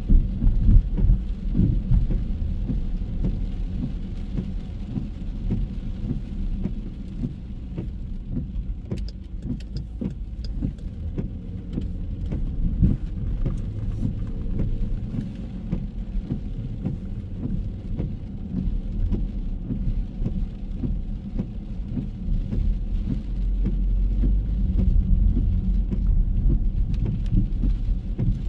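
City street noise in the rain: a steady low rumble of passing traffic that grows louder near the end.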